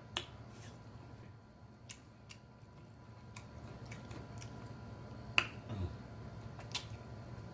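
Mouth clicks and lip smacks of someone chewing buffalo shrimp at close range, a dozen or so short, sparse smacks with the sharpest about five and a half seconds in, over a faint steady low hum.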